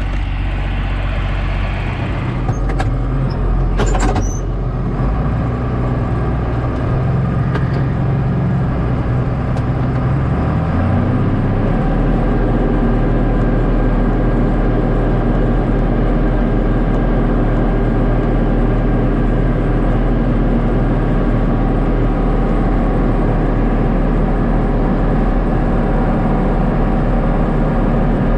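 John Deere 4055 tractor's six-cylinder diesel engine running steadily under load. It picks up speed about ten seconds in and then holds steady. A couple of sharp clicks come a few seconds in.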